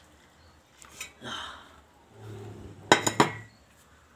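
A glass pot lid with a metal rim being set onto a stainless steel cooking pot: two sharp metal clanks about three seconds in, a fraction of a second apart, with a brief ring. Before them come fainter knocks and rustling.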